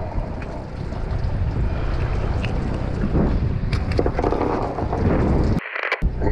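Wind buffeting the microphone on an open fishing boat: a steady low rumble that cuts out briefly near the end.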